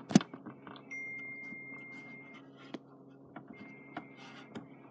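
Slime being handled, making scattered small clicks and pops, with one sharper click near the start. A faint high steady tone comes in twice, over a low steady hum.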